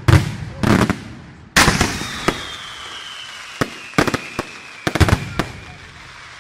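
Aerial firework shells bursting in a display: about ten sharp bangs, the loudest about a second and a half in, with a thin whistle falling slowly in pitch through the middle. The bangs thin out toward the end.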